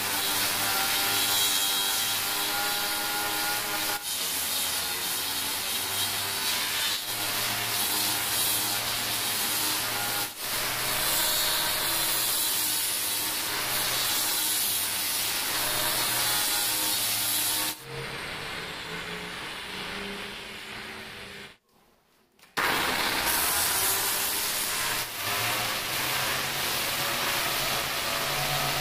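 Electric angle grinder with a sanding disc running against the edge of a black granite countertop, a steady whining grind. About two-thirds through it falls away, goes almost silent for about a second, then the grinding resumes.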